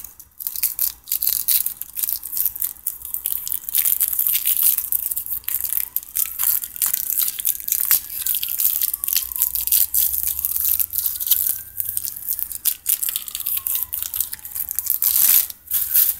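Plastic snack wrapper crinkling and tearing as a fruit roll-up is unwrapped by hand: a dense, irregular run of crackles and rips, with a louder burst near the end.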